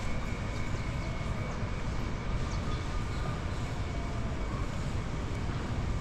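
Steady outdoor background noise: an even low rumble with no distinct events, and a few faint high chirps.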